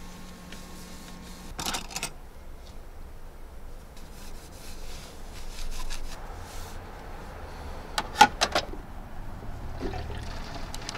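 Clearing up at a camper van's small kitchen counter: a cloth rubbing and wiping, with objects knocking and clattering now and then. The loudest moment is a quick run of knocks about eight seconds in.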